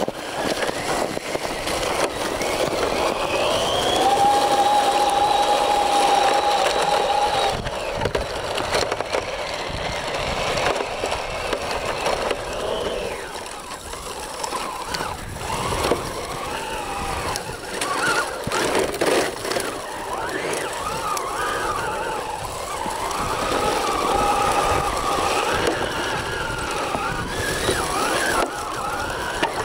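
3D-printed 1/12-scale Spyker KAT radio-control tracked dump truck driving over hard, crusty snow and dirt. Its drive whines over the rattle of its tracks. The pitch climbs about three seconds in and holds for a few seconds, then rises and falls repeatedly with the throttle in the second half.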